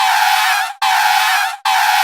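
Tyres screeching in a burnout: a loud, high, wavering squeal that repeats in identical bursts a little under a second long, with brief dropouts between them, about three times.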